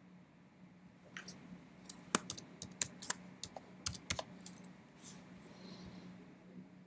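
Computer keyboard typing: about a dozen quick keystroke clicks, beginning about a second in and stopping about five seconds in, as a short search term is typed. A faint steady low hum lies under it.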